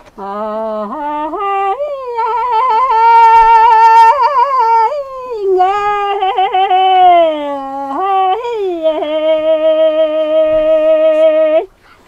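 A woman singing a Mongolian folk song unaccompanied, holding long notes broken by quick warbling ornaments. The last note is held for a few seconds and breaks off sharply near the end.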